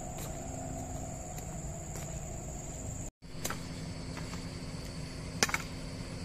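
Insects buzzing steadily as a high-pitched drone over a low rumble. The sound cuts out for an instant about three seconds in and resumes with a lower-pitched insect drone, with a couple of sharp clicks near the end.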